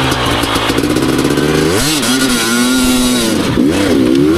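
Two-stroke GasGas enduro dirt bike engine running at low revs, with two quick throttle blips about two seconds in and near the end, the revs rising and dropping back each time.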